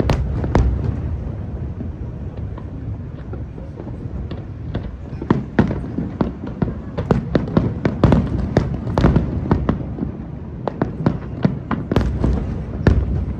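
Aerial fireworks going off in a dense, irregular run of sharp bursts and crackling reports, with heavier booms at the start and again about eight and twelve seconds in.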